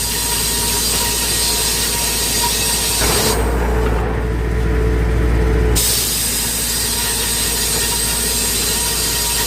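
Circular sawmill blade cutting through a spruce log, a loud high whine over a steady low drone. About three seconds in the high cutting noise drops away for a couple of seconds, leaving the machine's hum, then comes back as the blade bites again.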